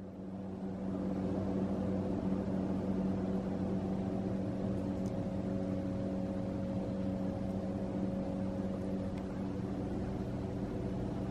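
A steady low machine hum made of several held tones, swelling up over the first second and then holding level.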